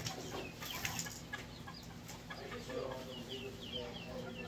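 Birds chirping and calling, with short repeated chirps throughout. A few light clicks in the first second come from the wire grid panels being handled.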